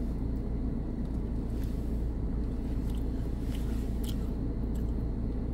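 Chewing a small crunchy cookie dipped in frosting, heard as a few soft, scattered crunches. Under it is a steady low rumble inside the car's cabin.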